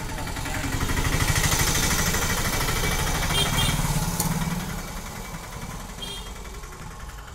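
A motor vehicle's engine running, swelling louder about a second in and fading away after about four and a half seconds.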